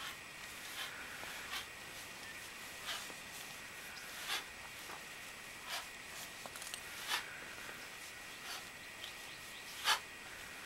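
Quiet, short swishing scuffs repeating about every one and a half seconds from two-handed swipes with a 30 lb all-steel club, over a faint steady high hum.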